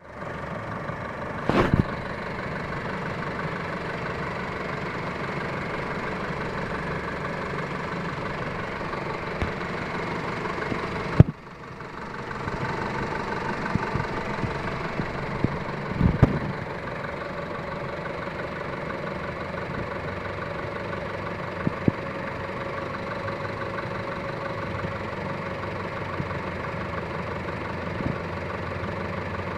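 A 2006 Honda Civic's four-cylinder engine idling steadily with an abnormal running noise that the owner is recording as a fault. A few sharp thumps stand out, the loudest about 11 seconds in, followed by a brief drop in level.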